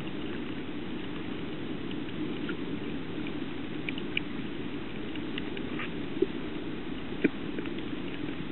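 Underwater ambience picked up by a camera in shallow reef water: a steady, muffled low rush with scattered small clicks and crackles, and two sharper pops about six and seven seconds in.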